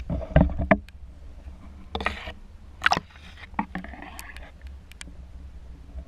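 Water and handling noise picked up by a camera held underwater: a steady low rumble, a cluster of knocks and clicks in the first second, then short sloshing bursts about two, three and four seconds in.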